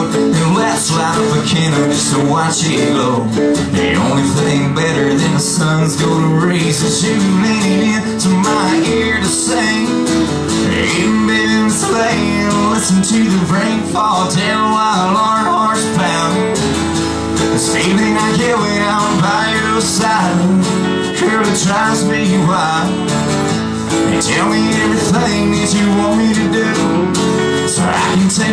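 A man singing a country song to his own strummed acoustic guitar.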